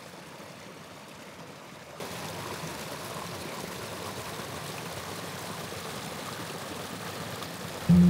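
Small woodland stream spilling over stones into a shallow, muddy channel: a steady rush of running water. It comes in louder about two seconds in, after a fainter hush.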